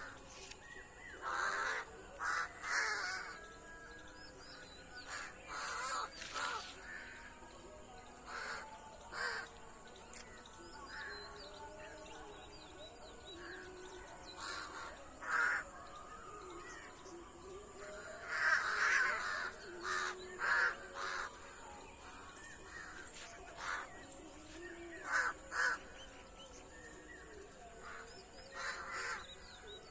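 Birds calling outdoors in short, repeated calls that come in clusters every second or two, over a steady high-pitched hiss.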